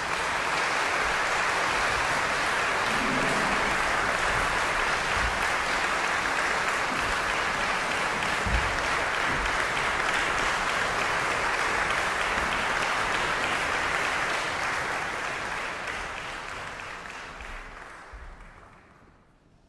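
Audience applauding, steady for most of the time and then dying away over the last few seconds.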